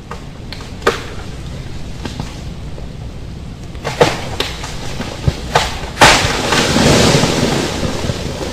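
Thunderstorm sound: rain with several sharp cracks of thunder, then a loud thunderclap about six seconds in that rolls on as a long rumble.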